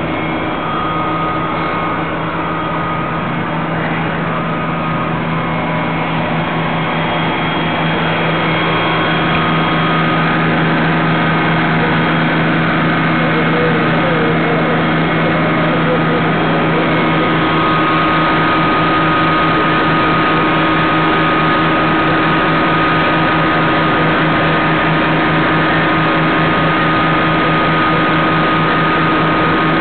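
Fire engine's motor running steadily at the scene, a constant loud hum with a steady higher whine, growing slightly louder about eight seconds in.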